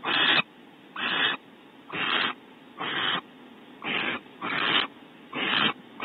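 Barn owl giving a run of short, rasping hissing calls, about one a second, each lasting about a third of a second.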